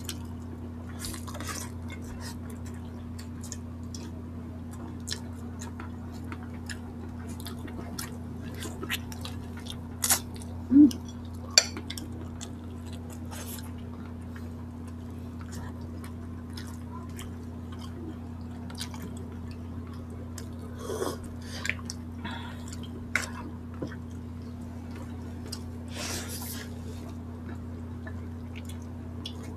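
Close-miked eating sounds of two people eating boiled chicken with their hands: scattered wet mouth clicks, smacks and chewing, with a few louder clacks about ten to twelve seconds in, over a steady low hum.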